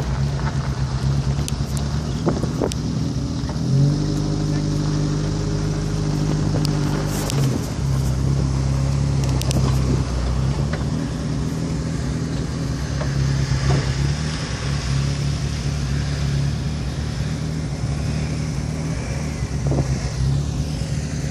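Off-road 4x4 engine running steadily at idle close by, its note rising for a few seconds about four seconds in before settling back.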